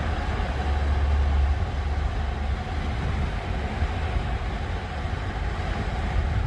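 Large truck's diesel engine running at a steady idle, a continuous low rumble.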